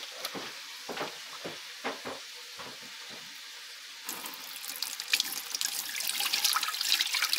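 Fresh milk poured from a metal pan through a plastic mesh sieve into a large metal pot, a steady splashing stream that starts about four seconds in and grows louder. A few light knocks come before the pour.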